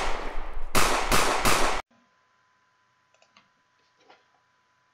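A rapid string of pistol shots, about four a second, fired as in a timed competition run, stopping about two seconds in. After that come only a few faint clicks.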